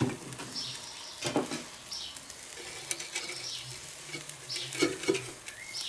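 Pork neck skewers sizzling on the hot grate of a small ceramic kamado grill, with a few sharp clicks of steel tongs against the grate as they are turned.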